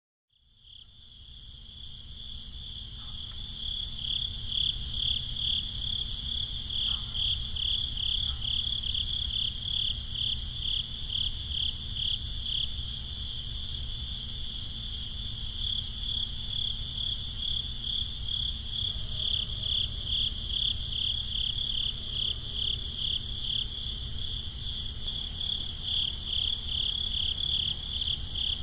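Crickets chirring in a steady, pulsing night chorus, fading in over the first few seconds, over a low background rumble.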